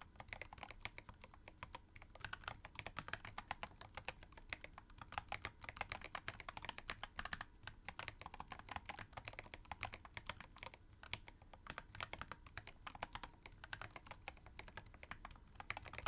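Continuous typing on a mechanical keyboard fitted with ceramic keycaps: a fast, unbroken run of key clicks.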